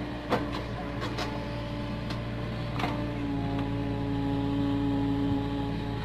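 Komatsu PC45 mini excavator running steadily as it digs soil, with a whine that swells for about two seconds in the second half and a few short clanks in the first half.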